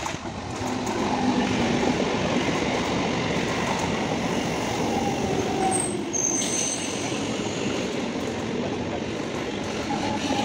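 MEMU electric passenger train running past along the platform track: a steady rumble of wheels on rails, with a brief high squeal about six seconds in.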